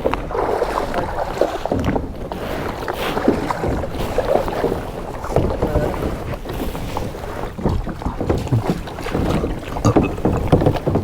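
Water splashing and sloshing around a kayak as it is paddled, in irregular surges, with wind rumbling on the microphone.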